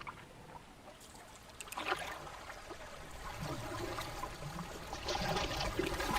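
Water splashing and trickling around a rowboat on the water. There is a splash about two seconds in, and the splashing grows busier and louder toward the end.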